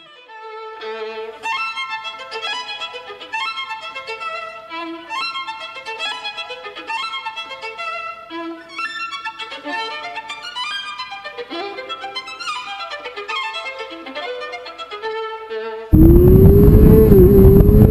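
Violin music playing a quick, busy melody. About sixteen seconds in the music stops and a racing motorcycle's engine cuts in suddenly and much louder, heard from a camera mounted on the bike and holding a nearly steady pitch.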